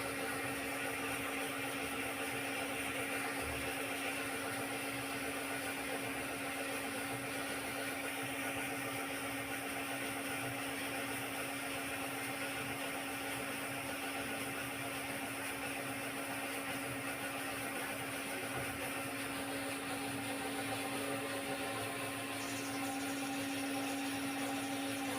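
Electric cutting machine running steadily with a constant motor hum.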